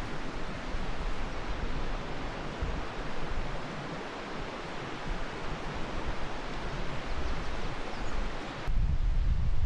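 Steady outdoor rushing noise with no distinct events. About a second before the end it switches suddenly to a louder, low wind rumble on the microphone.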